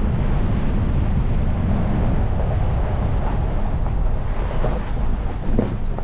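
Vehicle driving up a gravel road: a steady low rumble of engine and tyres on gravel, with one brief knock about five and a half seconds in.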